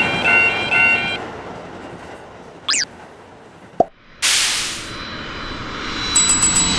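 Japanese railroad crossing warning bell clanging about two and a half times a second, stopping about a second in as the train rumble fades. Then come a quick falling whistle, a short pop, and a sudden burst of rushing noise that carries on.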